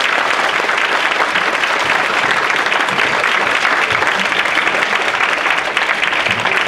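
Audience applauding: steady, dense clapping from a roomful of people after a song.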